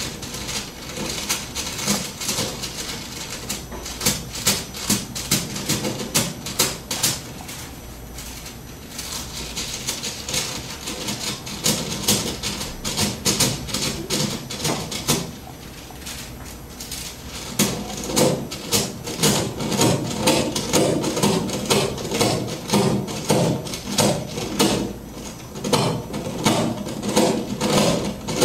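A paper book handled close to a microphone as an instrument: pages rustled, flapped and tapped in a dense, irregular stream of clicks and rustles. From about two-thirds of the way in, the strokes come fuller and lower-pitched in a quicker run.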